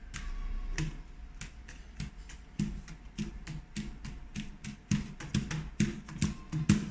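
Two tubes, one higher-pitched and one lower, tapped in turn: a run of short knocks, each with a low pitch, coming faster in the second half.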